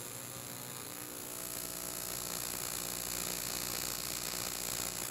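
AC TIG welding arc on aluminum plate from a Lincoln Electric Precision TIG welder, a steady buzzing hiss with a constant low hum, as a lap joint is tacked.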